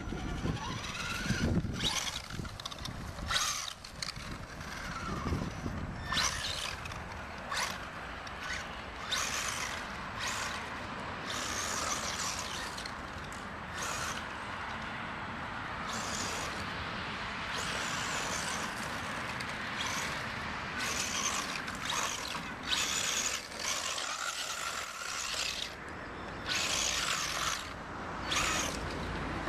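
Thunder Tiger Sparrowhawk XB RC buggy with a brushless motor, driven in many short bursts of throttle: the motor and drivetrain whine, rising and falling in pitch. The bald tyres spin on loose dirt and grass.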